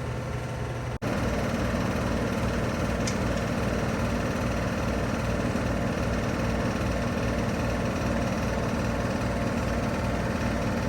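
An engine running steadily at idle with an even, pulsing rumble. It drops out for an instant about a second in and then carries on slightly louder.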